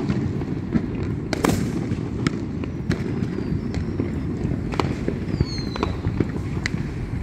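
Fireworks going off: a string of sharp bangs and pops at uneven intervals, the loudest about a second and a half in, with a couple of brief falling whistles near the end, over a steady low rumble.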